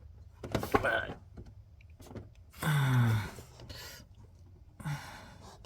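Hands handling parts and a cable, with scattered rustles and clicks, and a short low hum from a person that falls in pitch about three seconds in.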